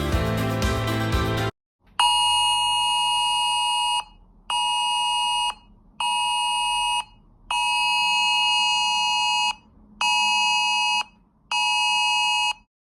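Background music stops about a second and a half in; then an emergency alert system's electronic alarm tone sounds, one steady buzzing tone pulsed six times in a long-short-short pattern that repeats twice.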